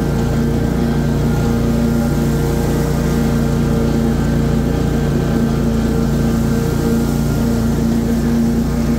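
Stand-on commercial lawn mower's engine and cutting deck running steadily while mowing grass: a constant engine drone with a steady hum.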